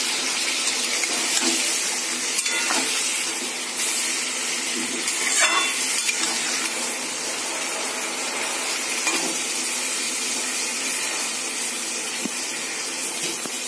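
Marinated chicken sizzling steadily in hot oil in a kadhai, with a few light knocks of a spoon against the pan as it is stirred.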